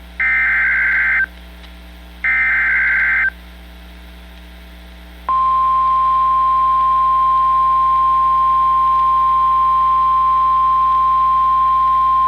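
Emergency weather alert signalling: the last two bursts of a warbling digital data header, each about a second long and a second apart. About five seconds in, a loud, steady, single-pitch warning alarm tone comes on and holds. Together they mark the start of a new weather warning broadcast.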